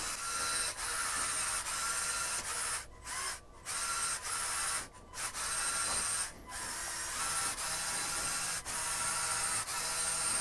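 LEGO Technic 42129 Zetros trial truck's electric motors and plastic drivetrain whirring as the truck manoeuvres to turn around. The whir stops briefly about four times in the first seven seconds, then runs on steadily.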